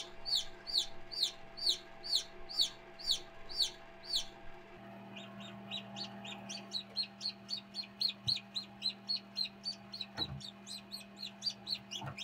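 Newly hatched chick peeping: loud, short, falling peeps about two a second, then from about five seconds in a quicker, fainter run of peeps. A steady low hum runs underneath.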